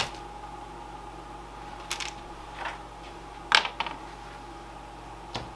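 A few short, sharp clicks and knocks from handling desktop PC hardware, the loudest about three and a half seconds in, over a steady background hum.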